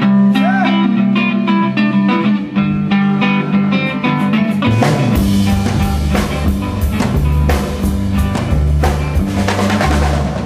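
Rock band playing live: an electric guitar picks a run of notes, then drums and bass come in a little under halfway through with a steady beat.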